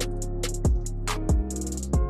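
Background music with a steady beat: a deep kick drum about every two-thirds of a second, crisp hi-hat and snare hits between the kicks, and held bass and synth chord tones underneath.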